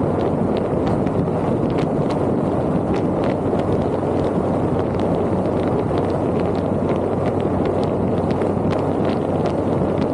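Vehicle on the move: steady road and wind noise with a low hum, peppered with many small irregular clicks.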